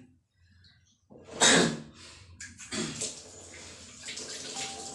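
Water running from a wall tap and splashing into a plastic basin while hands are rinsed under it, a steady hiss starting about two and a half seconds in. A single loud sudden burst comes about a second and a half in, just before it.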